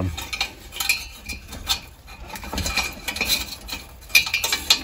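Light metallic clicking and scraping as a thermocouple's metal tube is worked down through the sheet-metal burner head of a propane patio heater, with a sharper clink about four seconds in.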